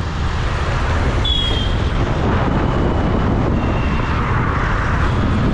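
Road noise while riding through city traffic: a steady rumble of vehicle engines and tyres, with a brief high-pitched tone a little over a second in.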